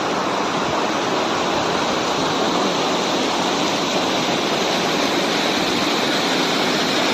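Vasudhara waterfall's falling water rushing steadily.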